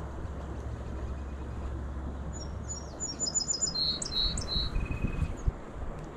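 A songbird sings a quick run of high chirps and trilled notes starting about two seconds in, ending on a short held whistle. Underneath is a steady low rumble, and from about halfway on there are scattered low thumps on the microphone.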